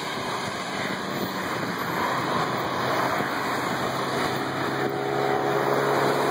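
Wind rushing over the microphone, with tyre and road noise, while riding a road bike at speed on asphalt. A low steady motor-vehicle hum joins about two seconds in and grows a little louder toward the end.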